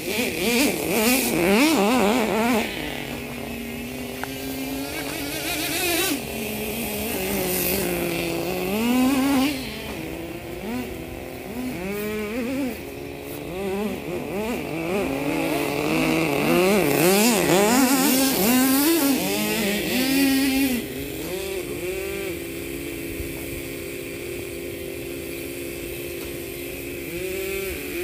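Small nitro-fuel RC car engine running, its pitch rising and falling again and again as the throttle is opened and closed. It holds a steadier pitch for several seconds near the end.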